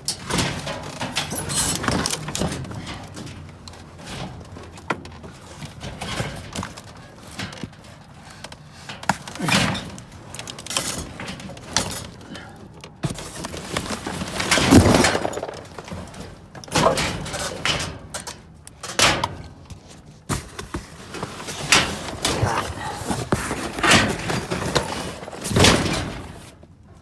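Repeated irregular clanks, thuds and scraping as metal hardware and debris are picked through and tossed about inside a dumpster, with one especially loud crash about halfway through.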